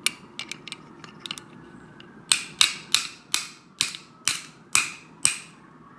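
A few light metallic clicks, then eight sharp metal clicks at a steady pace of about two a second, from the head of a 1947 Snap-on GM-70M ratchet being worked to free its jammed, crooked mechanism.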